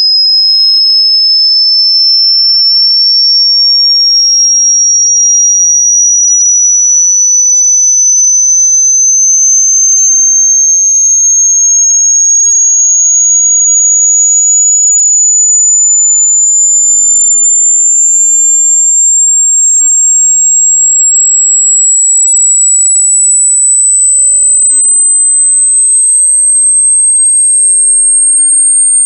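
A very loud, single pure electronic tone, high-pitched, its pitch climbing slowly and evenly.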